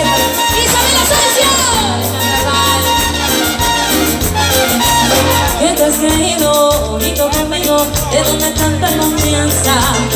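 A live dance band playing a Latin dance number through a loud PA, with a steady bass line and beat under the melody.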